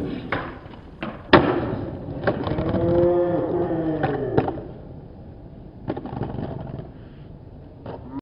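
Skateboard on a brick ledge and concrete. A loud crack comes about a second in, followed by a scraping slide with a wavering tone that rises and falls, then a clack as the board lands. After that the wheels roll on with a few more knocks.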